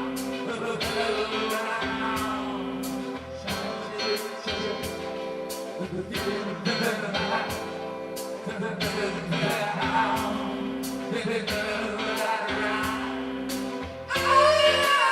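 Music with a singing voice over held instrumental notes and a steady beat.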